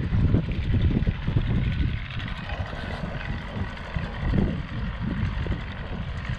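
Johnson 35 hp two-stroke outboard running at speed as the boat pulls away, a steady distant drone that eases off a little after a couple of seconds. Gusty wind buffets the microphone throughout.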